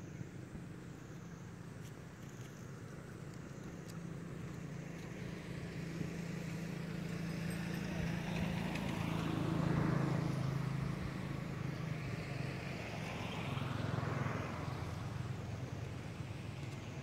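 Motor vehicles driving past: a steady engine hum that builds to a peak about ten seconds in as one vehicle passes, then a second pass about four seconds later.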